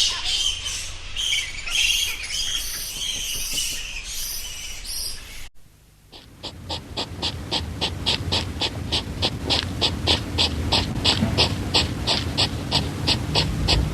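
Animal calls in two parts. First a jumble of high chirps, which cuts off suddenly about halfway. Then, after a brief gap, a rapid run of evenly spaced high chirps, about three a second.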